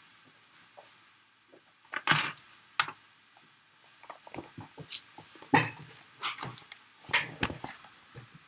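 Handling noises close to the microphone: short knocks, clatters and rustles as things are moved about. They come after a couple of quiet seconds and turn into a quicker run of clatters in the second half.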